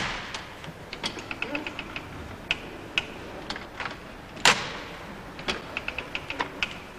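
Model of Thimonnier's chain-stitch sewing machine clattering as its needle stabs up and down through the cloth: runs of quick clicks, with a loud clack at the start and another about four and a half seconds in.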